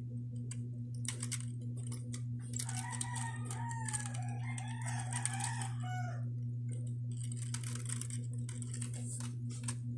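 A rooster crows once, a long call lasting about three seconds, over a steady low hum and a few faint clicks.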